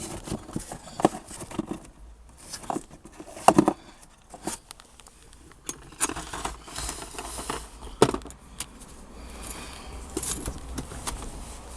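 Handling noise from the OBD-II diagnostic connector and its wiring being moved about in the dashboard: irregular plastic clicks, taps and rattles, with stretches of scraping and rustling.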